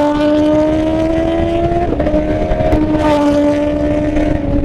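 Motorcycle inline-four engine held at high revs, its pitch creeping up and then stepping down with a shift about two seconds in, then running steadily.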